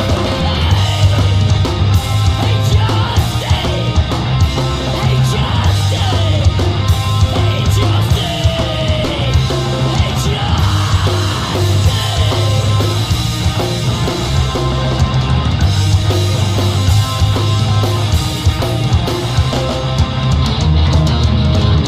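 Loud, dense heavy rock music with distorted electric guitar, a driving low end and vocals.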